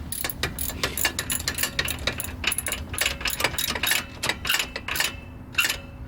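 Hand ratchet wrench clicking in quick, irregular runs of strokes as a bolt on the brake caliper is turned.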